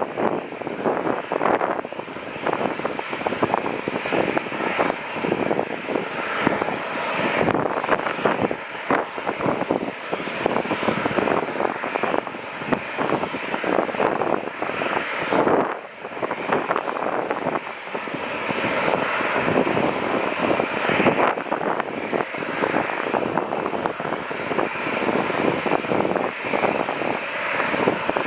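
Jet noise from a Boeing 737-700's two CFM56-7B22 turbofan engines as the airliner passes: a loud, steady rumble with a fluttering crackle and no clear whine. It dips briefly about halfway, then builds again.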